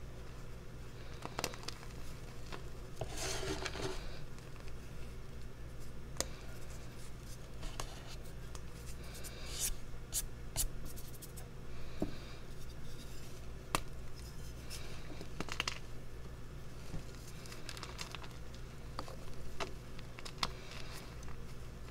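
Dyed reformed gym chalk crushed and crumbled by hand into a heap of chalk powder: soft crunches and scrapes with scattered sharp cracks, in clusters a few seconds apart, over a steady low hum.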